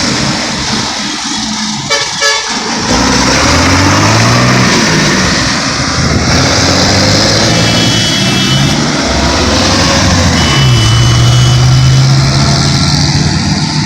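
Heavy road traffic passing close by: truck and car engines running and pulling away, with vehicle horns tooting several times.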